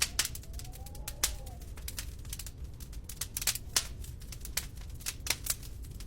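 Wood fire crackling in a fireplace: irregular sharp pops and snaps over a low steady rumble. Near the start a faint whistling tone rises and falls for about a second and a half.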